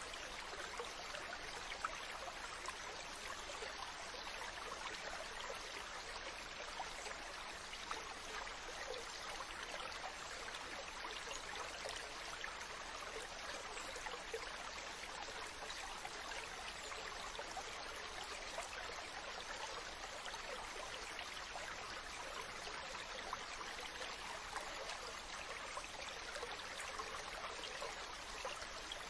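Ocean water rushing and fizzing steadily, with a fine crackle and no distinct surge of breaking waves.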